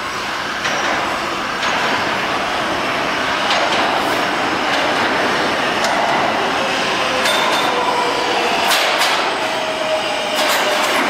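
New York City Subway R142A train approaching through the tunnel into a station, rumbling and growing slowly louder, with wheels clacking irregularly over the rail joints. A high whine comes in about two-thirds of the way through as the train slows into the platform.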